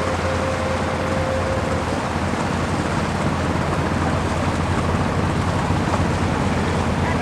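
Steady low engine drone under a constant rushing hiss, with a thin whine that stops about two seconds in.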